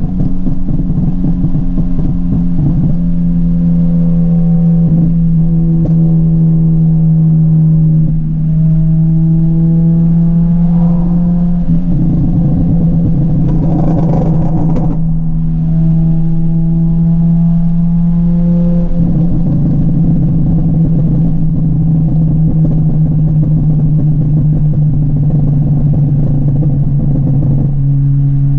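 Honda Civic EP3 Type R's four-cylinder K-series engine being driven hard, its note changing in steps every few seconds.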